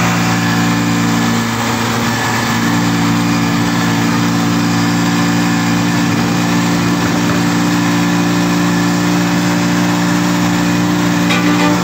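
Rusi Chariot 175 three-wheeler's engine running steadily under way, heard from inside the cab. Its pitch dips briefly about two seconds in, then it settles back to a steady drone.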